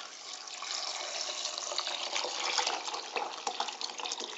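Cold water poured steadily from a jug into a stainless steel pot of cut apples, plums and sugar, a continuous splashing pour.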